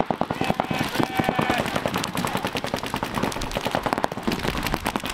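Several paintball markers firing at once: a dense string of rapid, overlapping shots.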